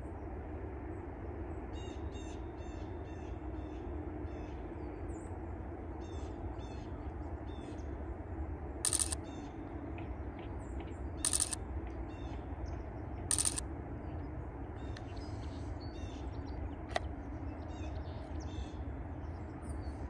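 Small birds calling with quick, repeated high chirps over a steady low background hum, broken three times near the middle by a short, loud, harsh rasp.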